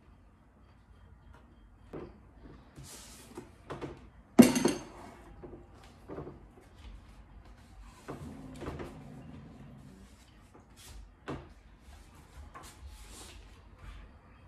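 Handling sounds: scattered knocks and clicks, the loudest about four seconds in, as a bowl with a spoon in it is set down on a side table and a book is picked up. Paper rustles around eight seconds in as the book's pages are opened and turned.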